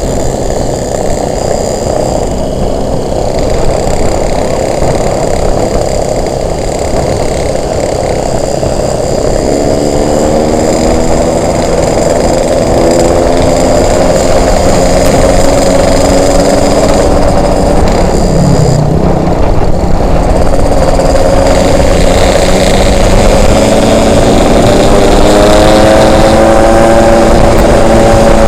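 Yamaha RX-King's single-cylinder two-stroke engine running under way, with heavy wind noise on the microphone. About a third of the way in, the engine note comes up and rises slowly. It breaks off briefly about two-thirds in, then climbs again, growing louder toward the end.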